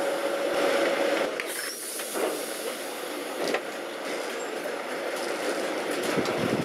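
Lisbon Remodelado street tram running slowly on its rails, heard from on board: a steady rattling rumble, with a wheel squeal held near the start that fades about a second in, and a few sharp clicks.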